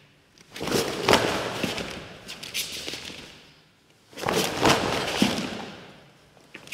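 Two ushiro geri back kicks thrown at full speed, about three and a half seconds apart: each is a rush of gi cloth with a sharp snap near its peak and bare-foot thuds on the wooden floor, fading as the kicker settles.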